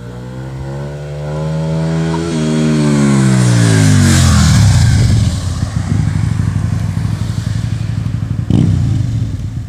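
Aprilia Tuono 1000R's V-twin engine revving as the motorcycle accelerates toward and past, the note rising and then dropping steeply as it goes by about four seconds in, loudest at the pass. It then runs on as a rough, low rumble.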